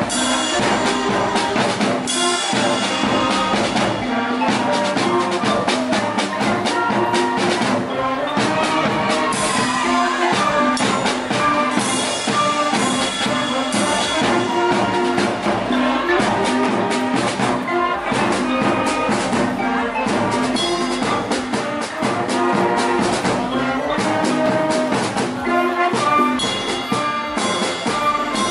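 A school wind band playing a piece together: saxophones, clarinets, flutes, trumpets, euphonium and tubas, with drum and cymbal strikes throughout.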